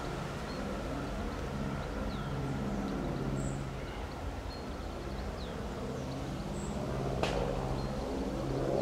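Diesel multiple unit's underfloor engine running with a low, wavering drone, with a single sharp click about seven seconds in and a few faint bird chirps.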